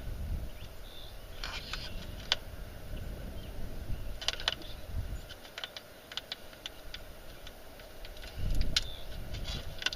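Handling noise of gloved hands working an epoxy putty stick and its packaging: scattered light clicks and rustles, with a few low rumbles near the start, about five seconds in and about eight and a half seconds in.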